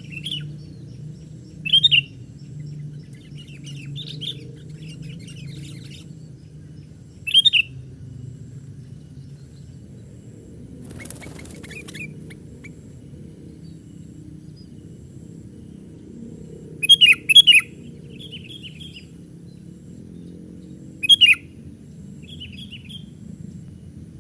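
Sooty-headed bulbuls calling: short, loud, sharp calls a few seconds apart, including a quick double call past the middle, with softer chattering notes between them. A brief rustle about halfway through, over a steady low rumble in the background.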